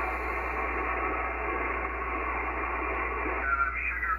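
Receiver audio from an ICOM IC-7300 transceiver's speaker: a steady hiss of band noise, narrow and muffled, with a voice coming through the static near the end.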